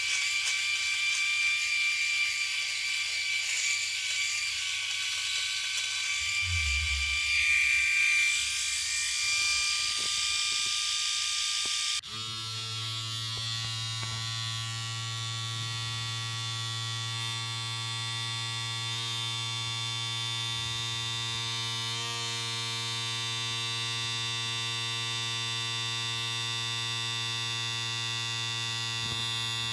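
Electric shaver motor buzzing steadily with a high-pitched whine; about twelve seconds in it cuts abruptly to a second shaver running with a lower, deeper buzz.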